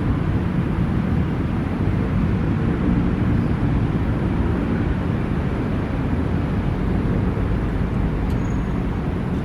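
Steady low ambient rumble with no distinct events, most of it deep in pitch; a brief faint high note sounds near the end.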